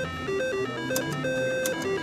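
Triple Diamond slot machine playing its electronic beeping tune of quick stepped tones while the reels spin, with a couple of clicks near the end as the reels stop.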